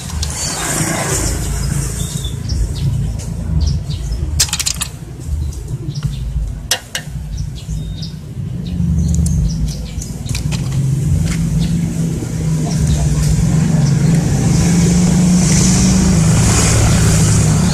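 A steady low engine hum with short sharp clicks and snips scattered over it, from wire being cut and stripped with small cutters.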